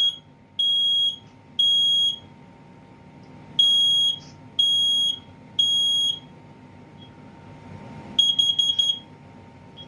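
Kidde SC9120B combination smoke and carbon-monoxide alarm sounding its test: a loud, high beep in the three-beep smoke pattern, three half-second beeps, a pause, then three more. Near the end comes a fast run of about five short beeps, the carbon-monoxide test pattern.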